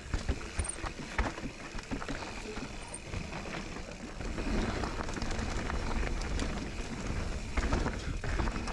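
Mountain bike riding down a dirt trail: tyres rolling and crunching over dirt and gravel, with frequent sharp clicks and clatters from the bike over roots and rocks. The rumble gets louder about four and a half seconds in.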